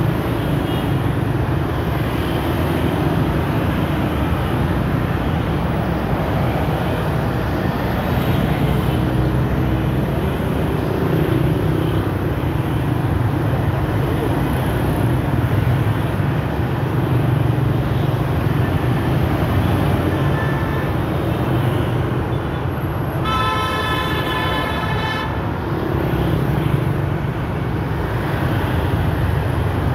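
Dense road traffic, mostly motor scooters and motorbikes with some cars, passing by steadily. About 23 seconds in, a vehicle horn sounds once for about two seconds.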